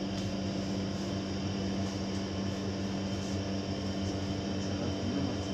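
Steady machine hum with a constant low drone, typical of an appliance such as an air conditioner or fan running without change.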